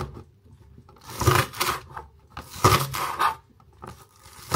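Chef's knife chopping spring onions on a plastic chopping board: two short runs of quick strokes, about a second in and again around three seconds in.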